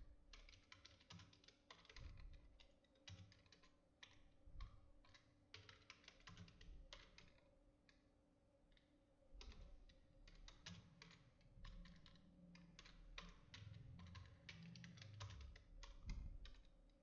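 Faint computer keyboard typing: runs of quick, irregular keystrokes with a pause of about two seconds in the middle. A faint steady hum sits underneath.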